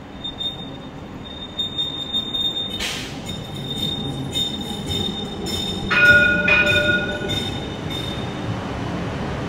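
CAF Urbos 3 light rail tram rolling slowly round a tight curve into a stop, its wheels giving a steady high-pitched squeal over the rumble of the running gear. A short hiss sounds about three seconds in, and about six seconds in a bell-like warning rings twice, the loudest sound here.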